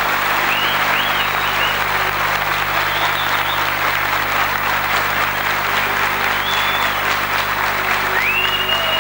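A large audience applauding steadily, with a few brief high gliding tones above the clapping.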